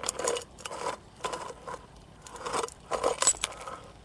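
Broken glass clinking and crunching in about six irregular bursts, with short ringing notes: shards of shot bottles being disturbed.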